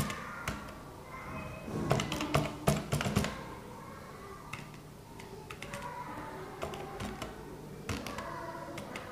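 Computer keyboard being typed on: a quick run of keystrokes about two to three seconds in, then scattered single key taps.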